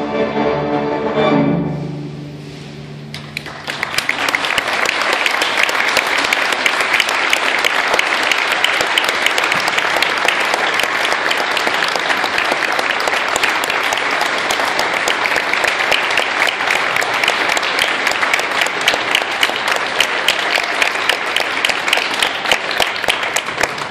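A school string orchestra of violins, cellos and double basses holds its final chord, which dies away about two seconds in. After a short pause the audience breaks into applause that goes on steadily.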